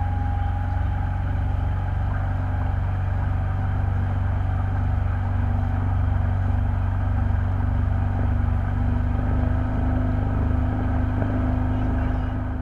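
An engine running steadily: a continuous low drone with a few held tones above it, unchanging throughout.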